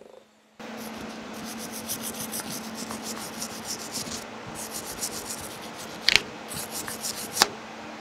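Hand wire brush scrubbing a freshly TIG-brazed brass whistle-lever ear in rapid back-and-forth strokes, with a short pause about halfway through. Two sharp knocks come near the end, and a steady low hum runs underneath.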